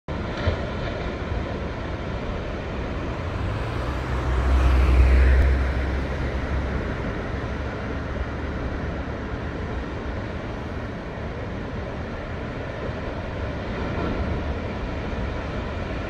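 Steady rush of distant heavy surf breaking on the shore. A louder low rumble swells and fades about four to six seconds in.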